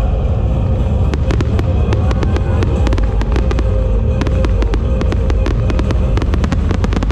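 Fireworks going off in rapid succession: dozens of sharp bangs and crackles, starting about a second in and coming thick and fast.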